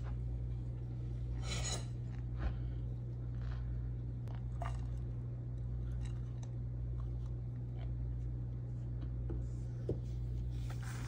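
Plastic spoon scraping and crunching through dry, crumbly powder in a plastic tub, in scattered short scratchy strokes over a steady low hum.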